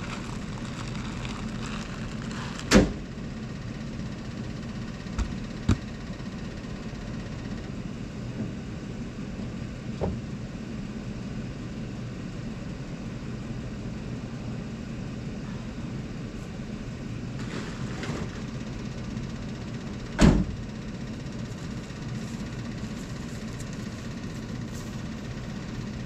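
Pickup truck engine idling steadily. In the first few seconds feed pours into a barrel deer feeder, ending in a sharp clank about three seconds in; a few lighter knocks follow, and another loud knock comes about twenty seconds in.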